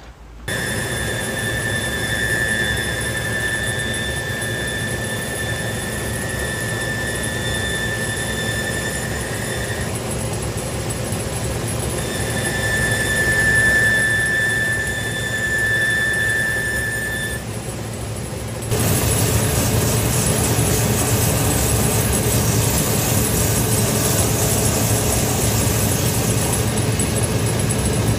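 A shoe-finishing machine running while a leather boot's sole edge is sanded: a steady high-pitched squeal over the motor's hum, which breaks off for a couple of seconds and returns. About two-thirds of the way through it changes to a louder, even whir with a hiss, as the sole edge is worked against a spinning wheel.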